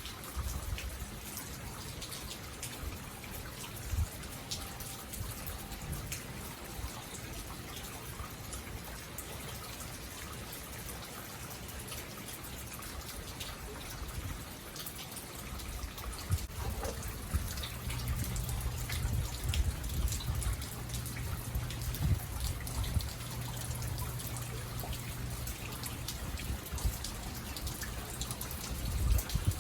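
Rain falling, with scattered drips ticking close by. A low steady hum comes in just past the halfway point.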